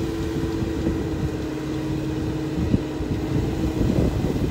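Winch on a mud-stuck Mitsubishi Pajero hauling the SUV forward out of the mud. There is a steady whine over a low hum, and the whine stops a little before the end.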